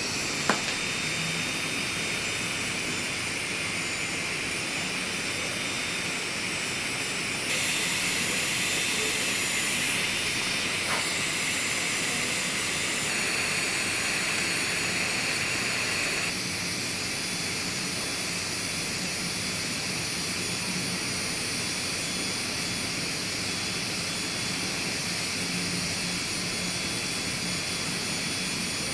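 Small high-speed electric motor running steadily with a high whine over a hiss. It gets louder and brighter about seven seconds in and drops back about sixteen seconds in; a single click sounds just after the start.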